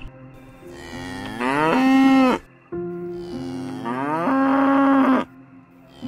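A cow mooing twice, two long calls that each rise in pitch and then hold.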